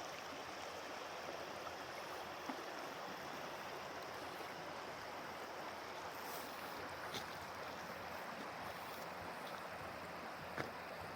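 Steady rush of flowing stream water, with a few faint clicks over it.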